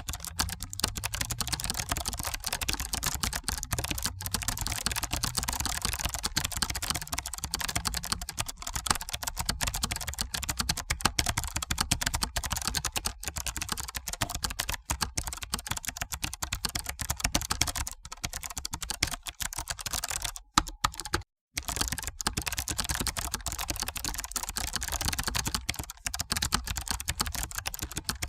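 Continuous fast typing on a computer keyboard: a dense, rapid run of key clicks, with one short pause a little past twenty seconds in.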